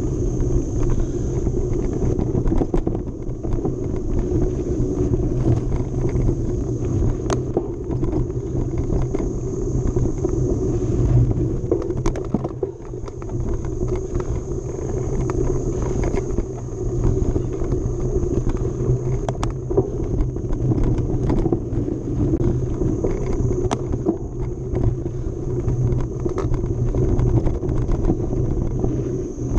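Mountain bike being ridden along a dirt trail: a steady rumble of tyres over the ground, with scattered sharp clicks and rattles from the bike over bumps.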